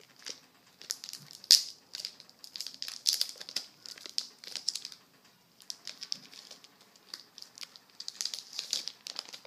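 Plastic crinkling and rustling as trading cards in plastic sleeves and packaging are handled, in irregular crackly bursts with a short lull about halfway.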